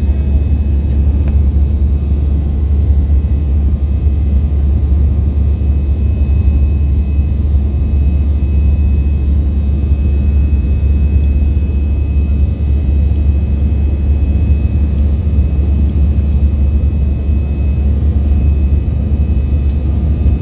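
Steady cabin noise of an Airbus A320 in its climb after takeoff: the jet engines and rushing air as a deep, even rumble, with a faint steady high tone above it.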